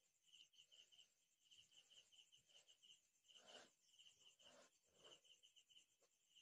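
Near silence: faint cricket chirping in quick runs of short high pulses, with a few soft rustles of cotton cloth being smoothed and folded by hand.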